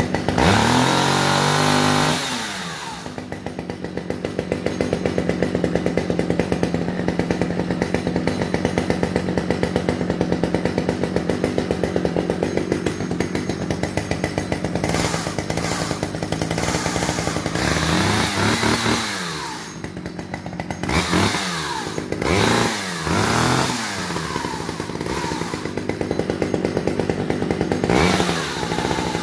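Stihl 009 two-stroke chainsaw engine running: it revs up and back down at the start, idles steadily, then is blipped up to speed and back about five times in the second half. The freshly cleaned saw, rescued from a scrap pile, starts and runs.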